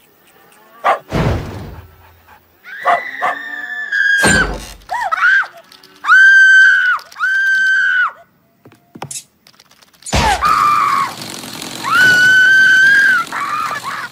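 Cartoon soundtrack: a character's high-pitched squealing cries, each held for about a second and repeated several times, some bending in pitch. Heavy thuds land about a second in, at about four seconds and at about ten seconds.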